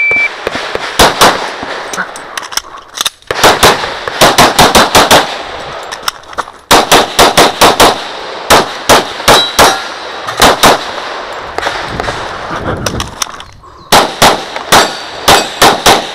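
A shot timer beeps once, then a Glock 35 pistol in .40 S&W fires fast strings of shots, broken by short pauses.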